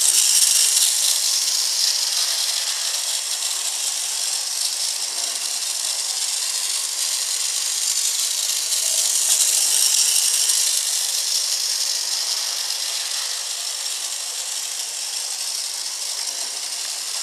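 Bachmann model trolley running round its track: a steady high rattle and whir from its small electric motor and its wheels on the rails. It swells a little about nine seconds in, then eases off toward the end.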